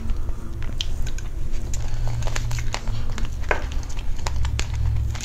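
Close-miked chewing of a soft strawberry cream dessert, with wet mouth clicks, and a metal utensil clicking and scraping in a plastic bowl, over a steady low hum.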